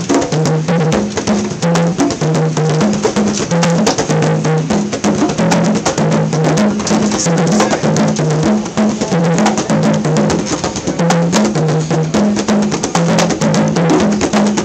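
Several conga drums played by hand in a fast, steady groove: dense slaps and taps over deep open tones at two pitches that trade back and forth in a repeating pattern.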